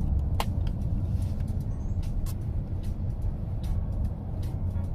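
Steady low road rumble inside a moving car's cabin, with faint music from the car's speakers and a sharp click about half a second in.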